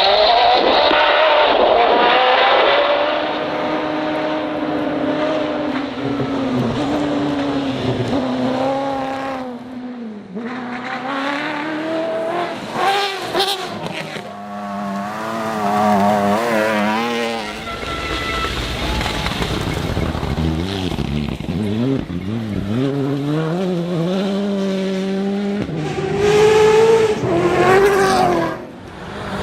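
Rally car engines revving hard, the pitch climbing and dropping again and again through gear changes. The sound changes abruptly a few times as it jumps between different cars.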